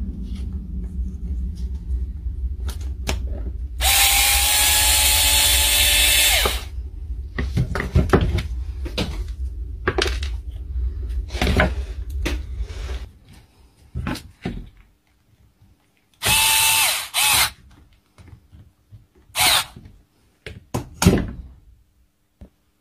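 Small power tool motor run in short bursts: one of about two and a half seconds, another of about a second, then a brief blip, each winding down as it stops. Clicks and handling knocks come in between, over a low hum that stops about halfway through.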